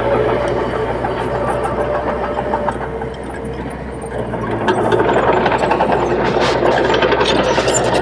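Heavy diesel earthmoving engine running, dipping slightly about three seconds in, then getting louder with clattering from about five seconds in.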